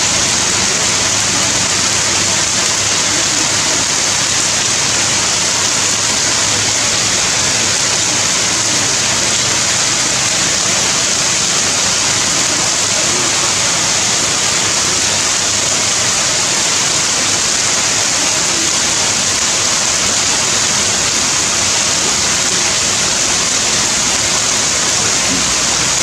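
Heavy rain falling steadily, a loud, even hiss.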